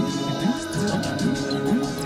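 Music: steady held tones over a low line that slides up and down in pitch about four times a second.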